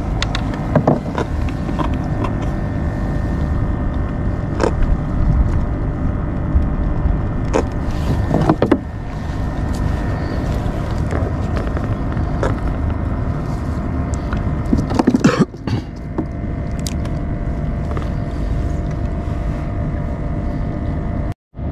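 Steady low rumble of wind and water on the microphone, with scattered clicks and knocks from a spinning rod and reel being handled in a kayak. A louder swish comes about fifteen seconds in.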